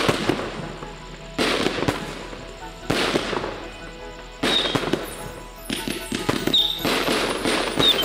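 Fireworks going off in a steady volley: six loud bursts, one about every second and a half, each trailing off in crackle. Music plays underneath.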